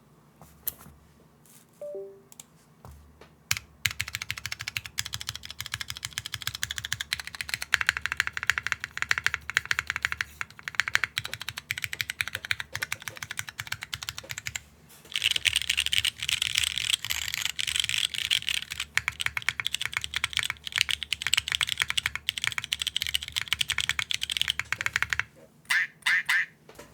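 Mechanical keyboard typing: Cherry MX Brown switches under DCS-profile keycaps on a Neo65 with a polypropylene plate and no foam. A few scattered keystrokes first, then steady fast typing from about four seconds in, a brief pause around the middle, then faster, louder typing, ending with a few last keystrokes.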